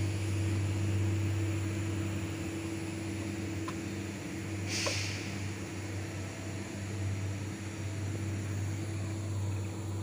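Mercedes-Benz Actros 4043 logging truck's diesel engine idling steadily, with a short hiss about five seconds in.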